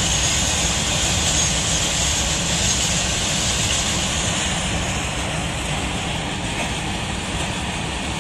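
Freight train of open wagons rolling past at steady speed: a continuous rumble with hissing wheel-on-rail noise, easing slightly in the second half.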